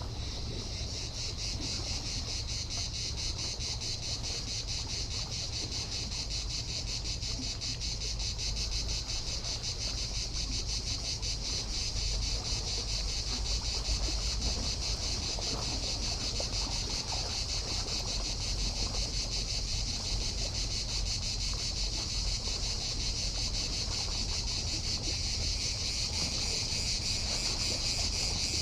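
Cicadas singing in a dense, steady chorus, a high buzzing drone that swells in about half a second in and holds throughout, over a low steady rumble.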